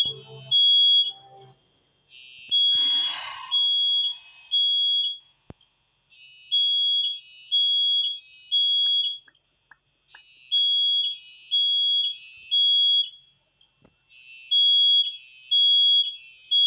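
Fire alarm sounding the temporal-three evacuation pattern: three long, high-pitched beeps, then a pause, repeating about every four seconds. A brief burst of noise about three seconds in.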